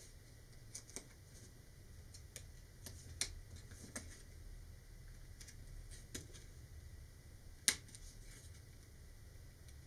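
Hobby knife tip pricking and popping small rectangles out of a laser-cut disc on a cutting mat: faint, scattered light clicks and ticks, with one sharper click about three-quarters of the way through.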